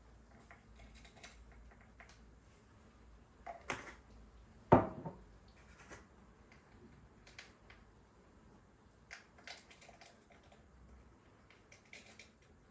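Light clicks and knocks of objects being handled and set down, with one sharper, louder knock about five seconds in.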